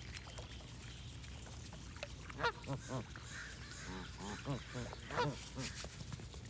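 Ducks quacking in a few short runs of calls, loudest about two and a half and five seconds in, over a steady low background.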